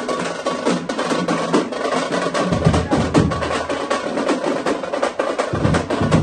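Tamate frame drums beaten by hand and stick in a fast, dense rhythm.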